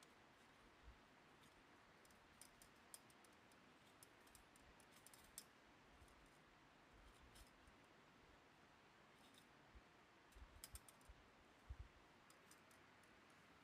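Near silence broken by faint scattered metal clicks and a few soft taps as a small folding metal Firebox stove is handled and set on the ground, with the clicks bunching about five seconds in and again near the end.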